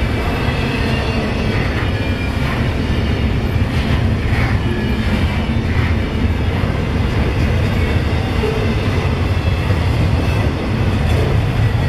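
Double-stack container freight cars rolling past, with a steady, loud rumble of steel wheels on the rails.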